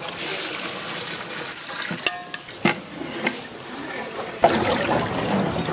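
Water poured from a steel bucket into a large pot of simmering vegetable masala, with a couple of sharp metallic clanks from the bucket about two seconds in. From about four and a half seconds in, a louder steady noise from the pot.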